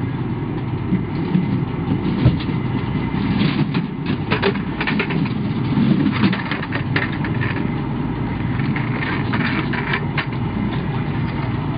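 Armored vehicle's engine idling steadily, with metallic clanks, knocks and rattles as a loaded litter is slid into the vehicle's litter rack. The clatter is busiest in the middle and comes again near the end.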